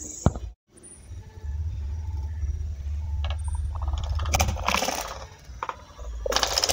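Chopped vegetables tipped from a metal bowl into a pot of broth, clattering against the bowl and splashing in. It comes in two main spells, about four to five seconds in and again near the end, over a steady low rumble.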